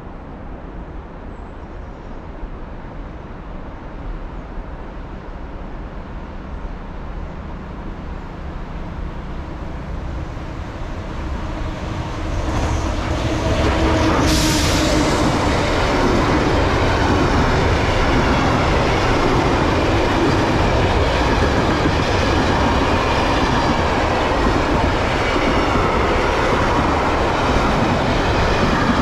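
A train approaching and passing close by. It grows steadily louder, draws level about a dozen seconds in with a short sharp burst of noise, then runs past with a loud, steady rush of wheels on the rails.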